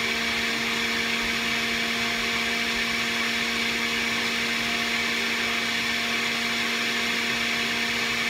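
Electric centrifugal juicer's motor running steadily, a constant hum and whine that holds one pitch.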